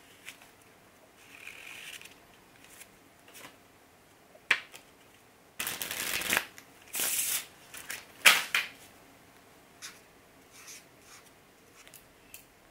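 A deck of Casual V2 paper playing cards being handled and riffle-shuffled. Scattered light clicks and snaps of cards are broken by a riffle that rattles for about a second near the middle, then a shorter flurry. The loudest is a sharp snap a little after eight seconds.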